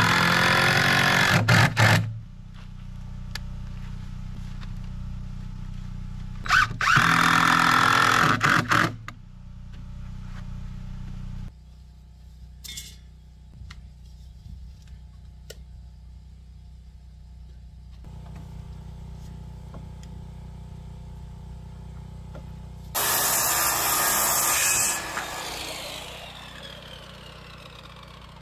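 Cordless drill running in short bursts of about two seconds, driving screws into wood: once at the start, again about seven seconds in, and a similar burst near the end. Between them, quiet background music.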